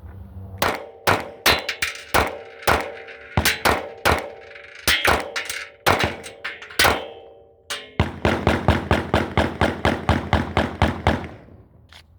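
Gunshots on an outdoor firing range: a string of uneven shots for about seven seconds, then about eight seconds in a fast burst of around seven shots a second for some three seconds, quick enough to be rapid pistol fire.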